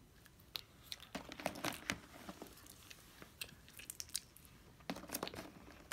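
Small toy packaging being crinkled and torn open by hand, in scattered crackles and clicks that bunch together about a second in and again near the end.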